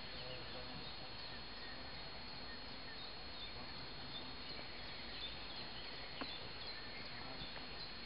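Outdoor ambience of grass and pine woods: a steady background hiss with scattered faint bird chirps and insect sounds, and one sharp click about six seconds in.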